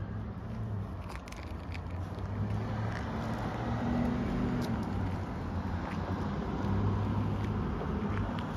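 Low engine hum of a car on the street that swells twice as it passes, with scattered soft rustles and scrapes of a large canvas being pulled and folded on asphalt.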